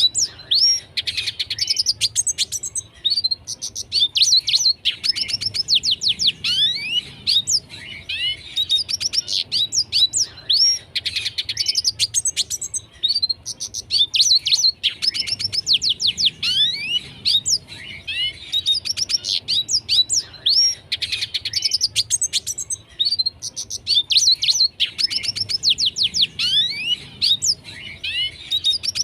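Red siskin singing: fast twittering phrases of sweeping chirps and buzzy trills, one after another with only brief breaks. This is the vigorous, full song ("gacor") that keepers play to teach other songbirds.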